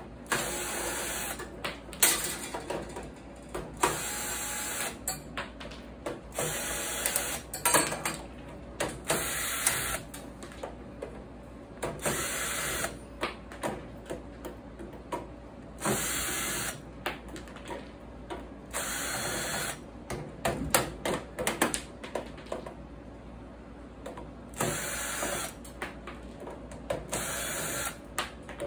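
Hyper Tough cordless drill/driver running in about a dozen short bursts of about a second each, backing screws out of a steel computer case. Sharp clicks and knocks come between the bursts.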